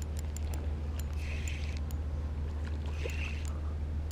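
Spinning reel being wound on a bent rod, with light clicks and a soft whirr coming back every second and a half or so, over a steady low hum.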